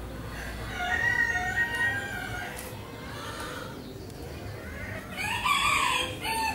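Roosters crowing twice: one crow about a second in and another near the end.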